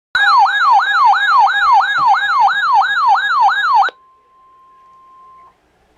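Electronic emergency alert siren: a loud wailing tone that sweeps quickly up and then down in pitch about three times a second, cutting off sharply after nearly four seconds. A faint steady tone follows briefly.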